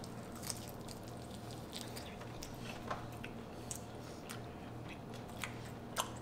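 Close-miked chewing of sticky, sauced chicken wings: faint, irregular wet mouth clicks and smacks over a low steady hum.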